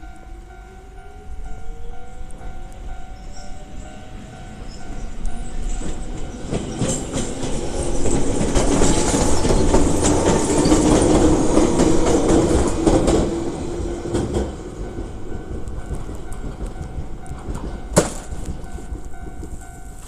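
Old-style standard electronic warning bell of a Japanese railway level crossing ringing in a steady repeating pulse while a Jōmō Electric Railway train passes. A rising whine comes in the first few seconds; the train's passing noise is loudest from about six to fourteen seconds in; there is one sharp click near the end, and the bell stops at the very end.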